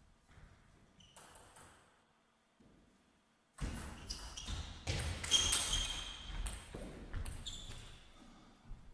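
Table tennis rally: a celluloid-type ping-pong ball clicking off rubber paddles and the table in quick succession, with players' shoes scuffing and squeaking on the court floor. A few light clicks come first, then the rally starts about three and a half seconds in and fades near the end.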